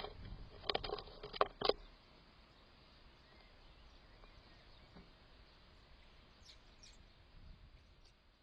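A few sharp knocks in the first two seconds, then a steady low outdoor hush with a couple of faint, short, high bird chirps a little after the middle.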